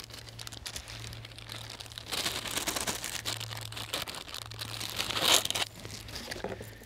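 Clear plastic bag crinkling and crackling as it is handled and pulled open, loudest about five seconds in.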